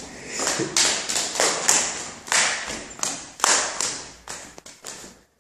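Footsteps going down wooden stairs, a tap or scuff with each step, about two a second.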